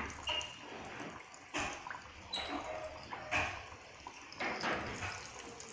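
Gujiyas deep-frying in hot oil over a medium flame: a steady soft sizzle of bubbling oil, broken by a few irregular sharp pops and crackles.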